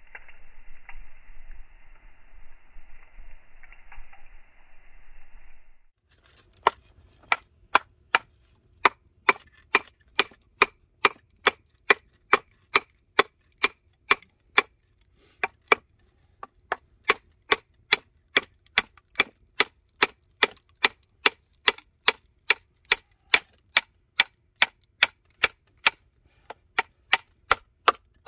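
For the first few seconds, a steady hiss. Then a wooden baton knocks on the back of a hatchet blade, driving it down through a dry piece of firewood to split it: even, sharp knocks about two a second, with a brief pause partway through.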